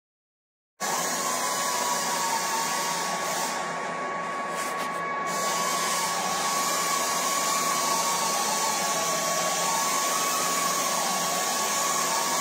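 Metal lathe running with a boring bar cutting in the eye of a Fiat 640 tractor's hydraulic lift arm: a steady whine over a strong hiss, starting abruptly about a second in, with a fainter tone that wanders up and down.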